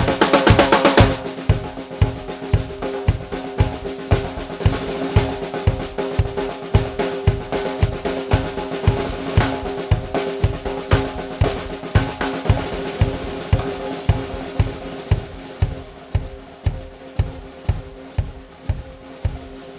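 Drum kit groove built around an undamped 14" x 5.5" rock maple Ether Drums snare: crisp snare hits that leave a sustained ringing tone, over a steady bass drum beat of about two kicks a second. It opens with a quick fill of rapid strokes in the first second and grows gradually quieter toward the end.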